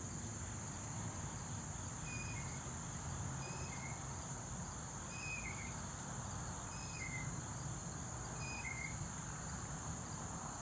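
Steady high-pitched drone of insects, with a short falling two-note chirp repeating about every second and a half and a low rumble of background noise underneath.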